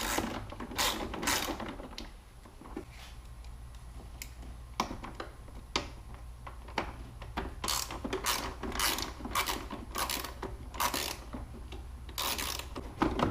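Socket ratchet clicking in short back-and-forth strokes, loosening the 10 mm bolts that hold the intake, in runs with short pauses between them.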